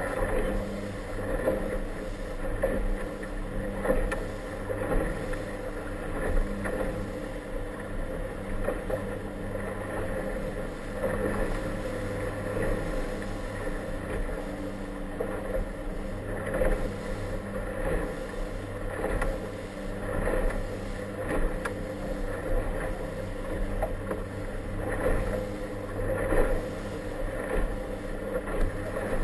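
Motor of an inflatable (RIB-style) committee boat running steadily under way through choppy water, with the hull thumping on the waves every second or two.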